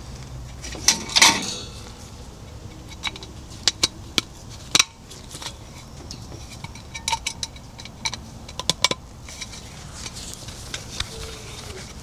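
Hard objects clattering and clicking as they are handled and set down: a loud rattling clatter about a second in, then a scattered string of sharp clicks and knocks.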